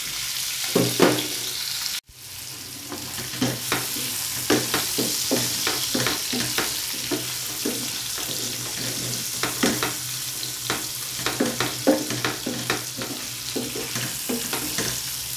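Liver and onions sizzling in a metal pan on a gas burner, with a spoon scraping and knocking against the pan as the mixture is stirred. The sound cuts out for a moment about two seconds in.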